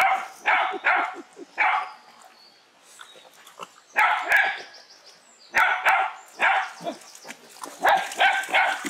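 Dog barking in short, repeated barks, about a dozen in clusters of two or three, with a pause of about two seconds early on.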